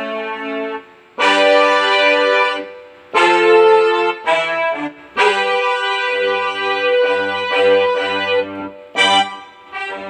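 Yamaha PSR-E333 portable keyboard playing sustained chords in a brass-like voice, in phrases of a second or two with short breaks between them; a low bass note joins under the chords about six seconds in.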